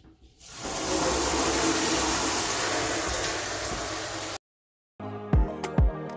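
A steady rushing noise, loud and even, rises in about half a second in and fades slightly before cutting off abruptly; background music with plucked notes comes back just before the end.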